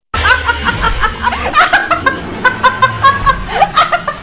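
Loud laughing in quick repeated bursts over background music with a bass line.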